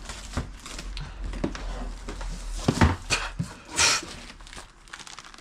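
Cutting into and pulling open a heavily taped cardboard box: scattered clicks, scrapes and knocks, with a short tearing rip just before four seconds in.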